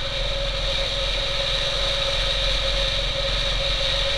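Motorcycle engine running steadily while riding at cruising speed, a low pulsing beat under a steady high whine.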